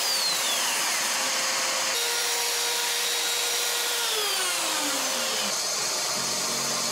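Electric plunge router and shop vacuum running together, a steady noise with a high motor whine. The whine drops in pitch twice as the router winds down.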